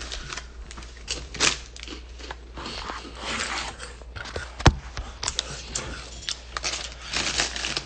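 Scattered clicks and rustling handling noises close to the microphone, with one sharp click about halfway through.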